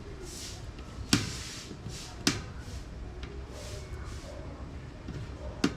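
Handling of a bike tool against a bicycle wheel: three sharp clicks, about a second in, about two seconds in and near the end, with soft rustling scrapes between them.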